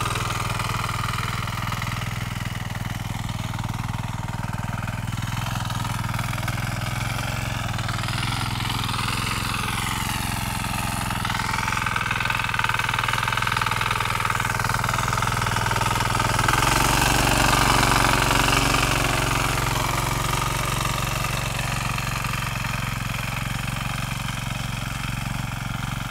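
Small single-cylinder diesel engine of a walk-behind power tiller running steadily under load as its rotary tines churn the soil. The engine note grows somewhat louder about two-thirds of the way through.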